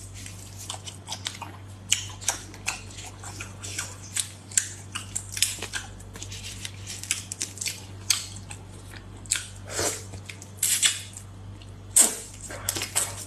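Wet eating sounds of raw soy-marinated shrimp: many short lip smacks, sucks and chewing, with a longer sucking sound about ten seconds in. Midway, the shells are peeled with gloved fingers.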